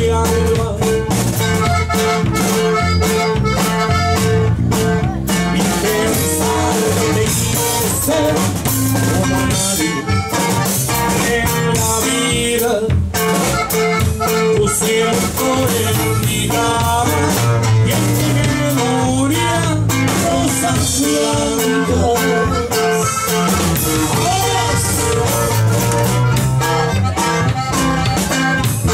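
Live band playing a song, with a drum kit keeping the beat under guitar and other melody instruments, loud and continuous.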